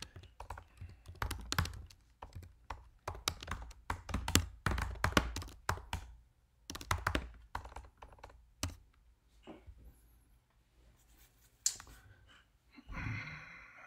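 Fast typing on a computer keyboard, rapid runs of keystrokes that thin out to a few scattered keypresses about two-thirds of the way through.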